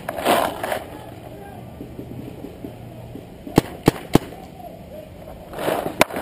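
Spyder paintball marker firing three sharp pops in quick succession, about a third of a second apart, a little past the middle, then one more pop just before the end. Short bursts of rustling noise come near the start and near the end.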